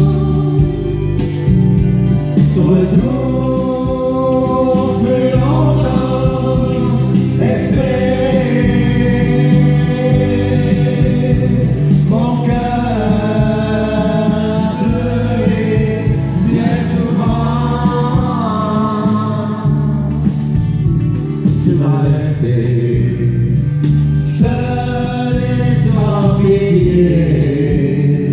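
Country song with singing over a steady beat, played loud through loudspeakers for line dancing.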